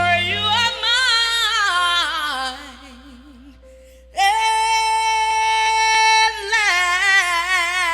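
A singer's wordless vocal with wide vibrato: a long, slowly descending phrase that fades about two and a half seconds in, then a long steady held note from about four seconds in that breaks into vibrato near the end.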